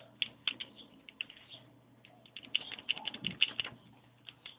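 Computer keyboard's Delete key pressed over and over, a string of key clicks that quickens into a fast run about two and a half seconds in: tapping Del during boot to enter the BIOS setup.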